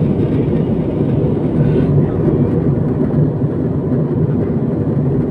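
Steady low rumble of an Airbus A320-family airliner in cruise flight, heard inside the cabin: engine and airflow noise with no change.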